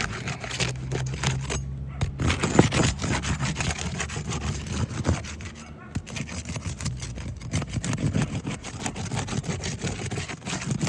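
Roof snake tool scraping and prying under asphalt shingles, lifting them to break the seal, in a run of irregular crackling scrapes and clicks. A low steady hum sounds underneath for a couple of stretches.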